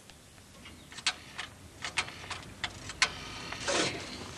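Scattered sharp clicks and knocks of a trackside telephone being handled in its metal cabinet as the handset is taken up, with a short rustle near the end.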